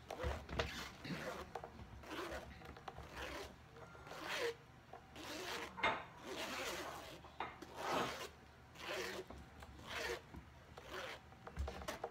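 Metal spoon scraping almond pulp against a fine-mesh stainless strainer in repeated rasping strokes, pressing the last of the almond milk through.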